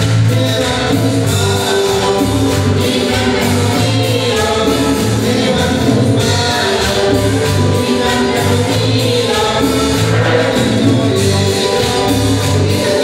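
Live gospel-style praise music from a church band with singers, over a steady beat and bass line.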